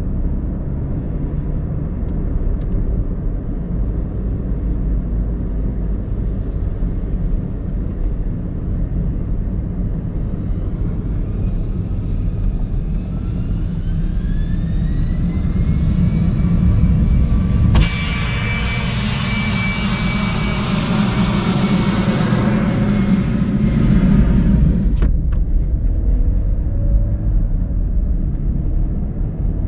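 In-cabin sound of a Suzuki Ignis's 1.2-litre four-cylinder petrol engine and road rumble while driving, the engine note rising as the car picks up speed. About two-thirds of the way through, a brighter rushing noise starts suddenly, lasts several seconds and stops abruptly.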